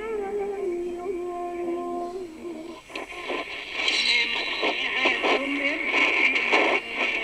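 Shortwave AM broadcast audio from a Lowe HF-225 Europa receiver being tuned across the 31 m band. For the first few seconds a station on 9460 kHz carries a singing voice holding wavering notes. About three seconds in the dial is turned up toward 9470 kHz, and the song gives way to choppy broadcast audio under hiss and interference.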